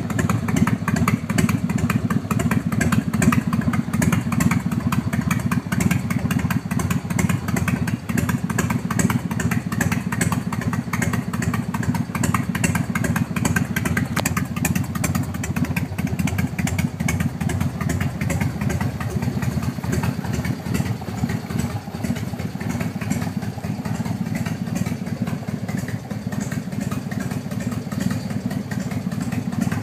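Harley-Davidson Fat Boy's air-cooled Evolution V-twin running through Screaming Eagle aftermarket exhaust, a steady deep loping exhaust pulse. It is a little louder and more uneven in the first several seconds, then settles.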